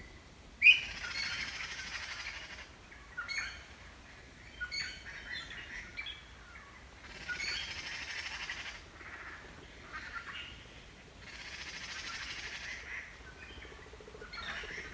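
Small birds chirping in short calls, broken by three bursts of rustling and crunching, each about two seconds long, as a giant panda pulls at and chews bamboo. A sharp snap about half a second in opens the first burst and is the loudest sound.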